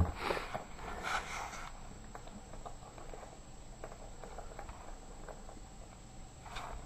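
Faint, scattered clicks and taps of a Yorkshire terrier playing with a ball and a leather toy.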